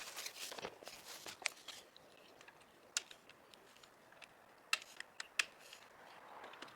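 Scattered light clicks and taps with some rustling in the first couple of seconds: small metal parts and tools being handled while fitting bolt-on motorcycle helmet hooks.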